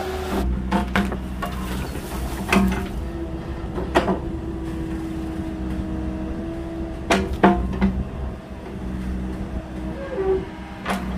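Small agricultural excavator's diesel engine running steadily, with sharp metallic clanks and knocks every second or few as the machine works.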